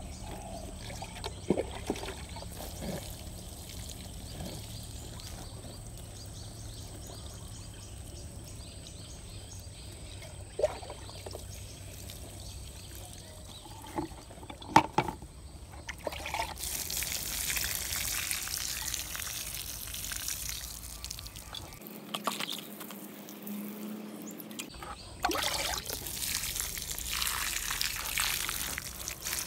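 Water showering from a perforated metal can onto potted plants and leaves, in two long spells in the second half. The first half is quieter, with a few sharp knocks.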